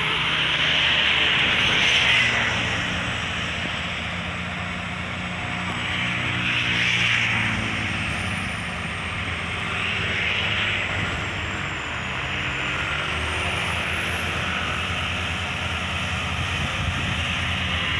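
Bulldozer's diesel engine running steadily as a continuous drone, with the noise swelling and easing every few seconds.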